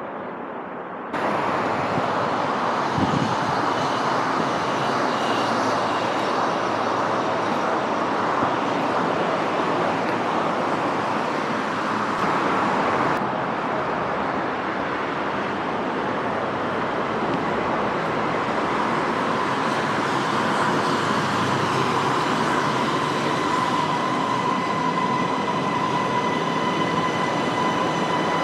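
Electric passenger train running, a steady rush of wheel and running noise that starts abruptly about a second in. Past the halfway point a steady high motor whine comes in, made up of several tones at once.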